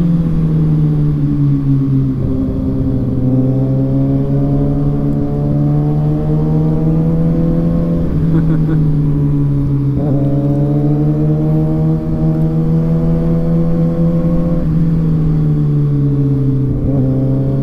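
Inline-four sport motorcycle engine running under way, its note climbing steadily through the gears with a gear change about ten seconds in. It eases off and the pitch falls in the last few seconds.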